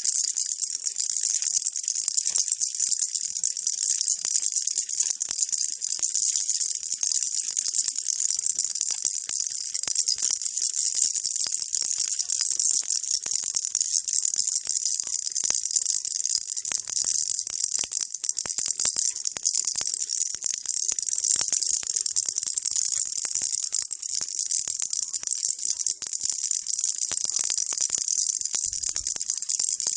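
Baby rattle shaken without pause: a dense, steady, high-pitched rattling.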